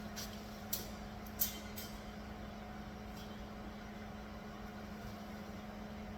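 Steady shop hum with one even tone, with a few light clicks and taps in the first two seconds and one more a little after three seconds.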